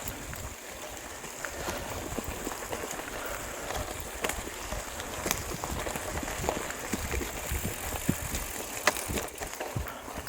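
Mountain bike being ridden over a rough dirt trail: steady tyre noise with frequent small knocks and rattles from the bike over bumps.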